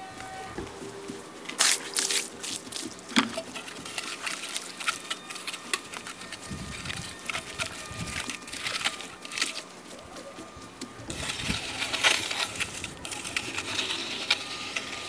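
Irregular sharp clicks and light knocks of hand work, with a rougher stretch of scraping about eleven to thirteen seconds in.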